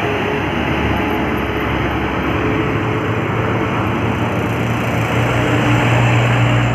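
Heavy road traffic: the engine of a large vehicle running steadily as it passes, a low hum that grows louder in the second half, over dense road noise.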